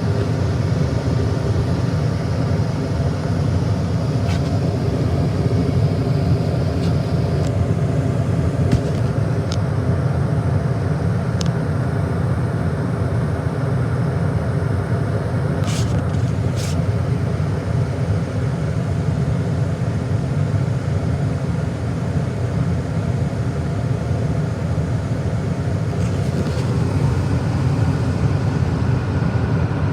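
Comfortmaker gas furnace running: a steady hum with several even pitched tones, and a few faint ticks along the way.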